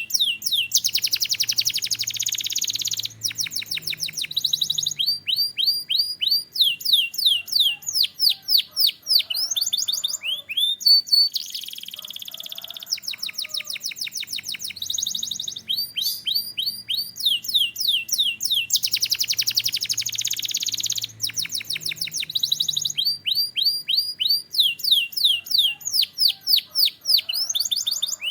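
Canary singing continuously: quick series of high sweeping notes alternating with dense, rapid rolling trills, the phrases following one another without a break. The same run of phrases comes round again about two-thirds of the way through.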